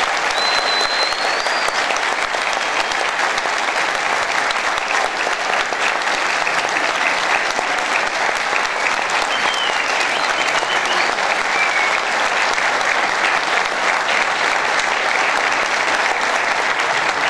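Audience applauding steadily, a long, even round of clapping.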